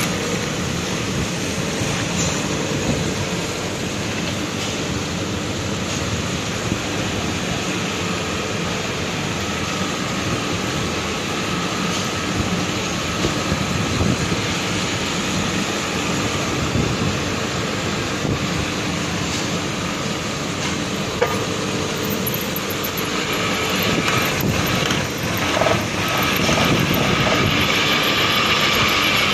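Power drill driving a tungsten-carbide-tipped hole saw: a steady motor whine mixed with grinding cutting noise. It gets louder and harsher near the end.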